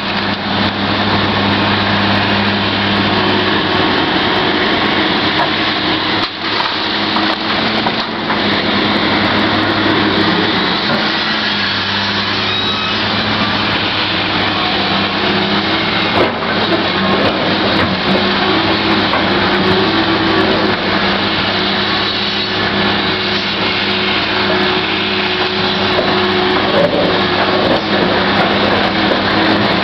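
Komatsu PC1250 hydraulic excavator working, its large diesel engine running steadily under load as the bucket digs and swings, with a few short knocks from the bucket and rock.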